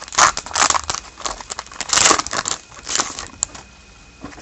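Crinkling and crackling of a foil trading-card pack wrapper being handled, in a quick run of bursts that dies down about three and a half seconds in.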